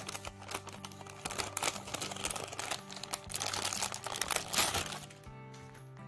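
Packaging crinkling and rustling as a phone case is unwrapped, over steady background music; the crinkling stops about five seconds in, leaving only the music.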